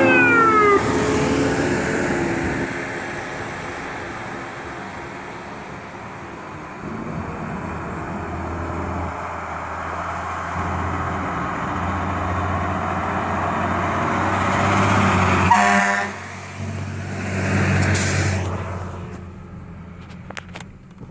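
Fire siren winding down in a falling glide over the first second, then a fire engine's diesel engine running with a steady low drone as it pulls away. A short air-horn blast sounds about fifteen and a half seconds in, and a thump follows about eighteen seconds in.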